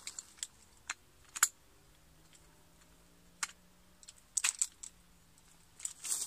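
Shock-corded aluminium poles of a folding bucket-style camping chair clicking and clacking as the leg sections snap together and slot into the frame hub: separate sharp clicks, with a quick cluster about four and a half seconds in.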